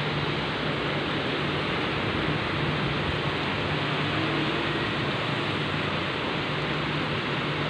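Heavy rain falling as a steady, even hiss, with a low steady hum underneath.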